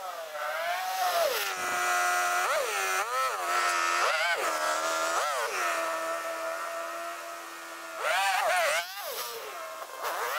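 A high-pitched engine revving up and down in quick repeated blips, dropping back to a steady idle between them.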